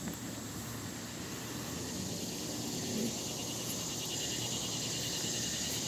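Insects chirring steadily in a high, even drone, over a low background hum.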